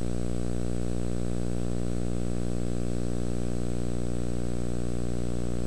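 Steady electrical hum with a string of even overtones, unchanging throughout: background hum in an old film soundtrack rather than the welding arc itself.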